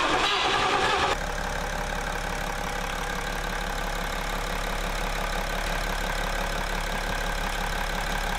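BMW X6 30d's 3.0-litre inline-six diesel engine idling steadily. A louder, rougher burst of noise fills the first second and cuts off abruptly.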